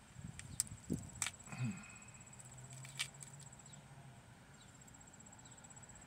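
Hands breaking open a small yellow Fushimi pepper: a few crisp snaps and crackles in the first three seconds. Under it runs a steady, high, pulsing trill.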